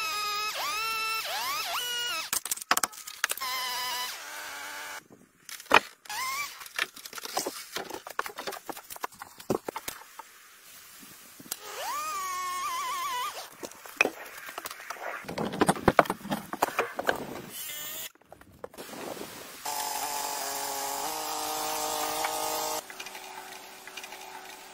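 Woodworking sounds in quick succession: a power tool running in bursts that shift in pitch, with many sharp knocks and taps in between. Near the end comes a steady run of a motor-driven tool.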